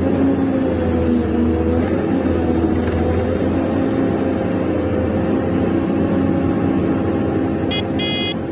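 Electric motors and gearing of radio-controlled model construction machines running steadily with a slightly wavering whine. Near the end come two short electronic beeps.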